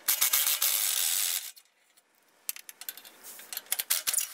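Yellow-and-black power tool driving an E12 socket on a long extension to undo an exhaust-flange bolt. It runs loud for about a second and a half, then stops. Scattered metallic clicks follow near the end.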